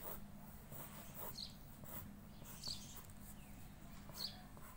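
Pencil sketching on paper in light strokes, with a short high chirp repeating at uneven intervals of about one to two seconds, and a low steady hum.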